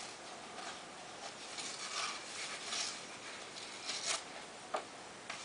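Rustling and scraping as a mailed CD package is handled and opened, with a few sharp clicks near the end.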